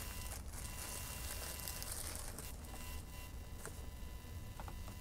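Quiet room tone: a steady low hum and a faint high whine, with a few soft clicks and rustles.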